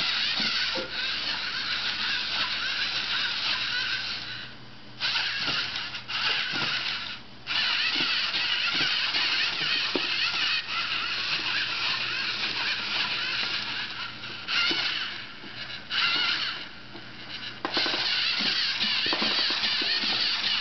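Lego Mindstorms NXT servo motors whirring through their plastic gears as they drive the six-legged walker's legs, with small clicks of the legs on a wooden floor. The whirring stops and restarts several times.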